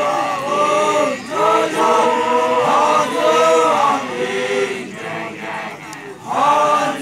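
A group of male voices chanting a song together in unison, with long held notes; the singing softens about four seconds in and swells again near the end.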